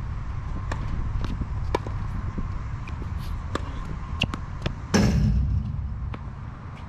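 Tennis ball hits and bounces on a hard court: a string of sharp pops, with one loud strike about five seconds in. Wind rumbles on the microphone throughout.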